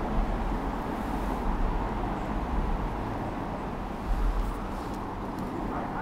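Strong wind buffeting the microphone: an uneven low rumble in gusts, with a louder gust about four seconds in.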